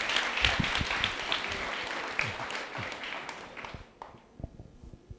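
Audience applauding, the clapping fading away and dying out about four seconds in.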